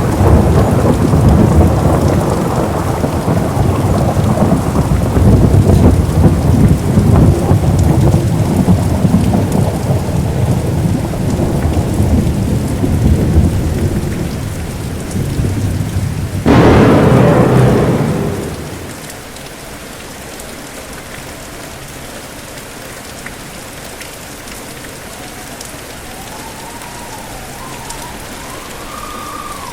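Thunderstorm: heavy rain with thunder rumbling low through the first half, a sharper thunderclap a little past halfway, then the thunder dies away about two-thirds of the way in, leaving steady rain.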